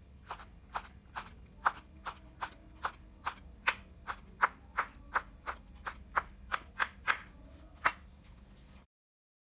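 Steady rhythmic tapping in a kitchen, about twenty sharp knocks at roughly two and a half a second, over a faint low hum.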